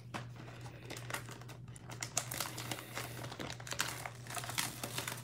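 Plastic shrink wrap crinkling and tearing as it is peeled off a cardboard trading-card box by hand, in quick irregular crackles that grow busier about two seconds in.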